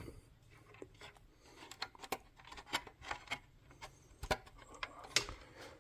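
Faint, scattered clicks and rubbing as wires and their plastic connectors are handled and pushed onto a garage door opener's control board, with a couple of sharper clicks near the end.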